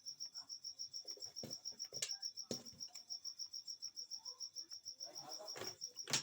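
A cricket chirping in a steady, fast, even pulse, about seven chirps a second, with a few sharp clicks around two seconds in and again near the end.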